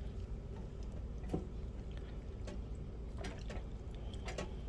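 Metal tongs stirring chicken and vegetables in their juices in an electric roaster pan, with a few wet scrapes and clicks against the pan over a steady low hum.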